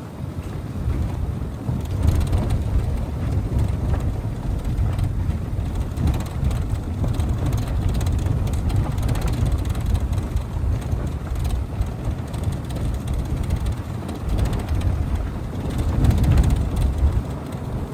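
Car driving along a road: a steady low rumble of engine and road noise that rises and falls in level.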